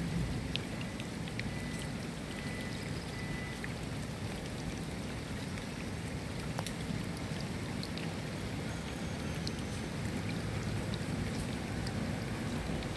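Steady rain: a dense, even hiss with individual drops clicking sharply here and there.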